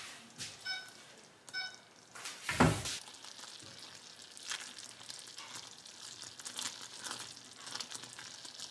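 Thick sugar-and-evaporated-milk fudge mixture boiling in a saucepan, with many small bubbles popping and crackling, and a silicone spatula stirring and knocking once against the pot about two and a half seconds in. Two short high beeps sound about a second apart near the start.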